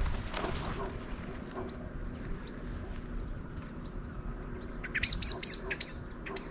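Wild bird calling: a quick series of about five short, sharp, high chirps near the end, over a low outdoor background.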